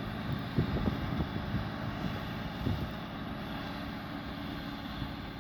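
Massey Ferguson 7718S tractor engine running steadily under ploughing load, with a few brief low bumps.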